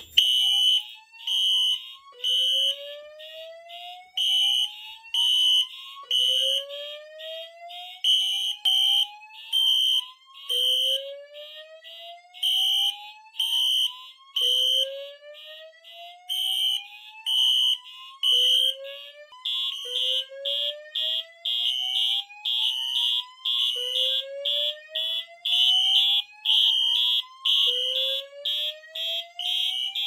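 Fire alarm system in alarm, with several notification appliances sounding together. A voice-evacuation speaker plays a slow whoop, a tone rising over about four seconds and repeating. Over it, Wheelock horns pulse at a high pitch, one on march time and one on the code-3 temporal pattern. About twenty seconds in, the horn pulses become louder and closer together.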